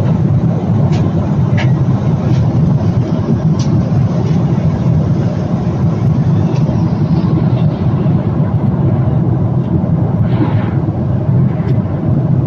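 Steady low rumble and hiss of a jet airliner's cabin in cruise flight, engine and airflow noise heard from a window seat, with a few faint clicks in the first few seconds.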